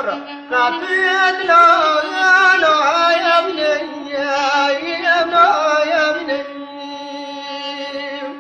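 A man singing a slow, heavily ornamented Kurdish folk melody over a steady held instrumental drone. The voice stops about six seconds in, leaving the drone sounding alone.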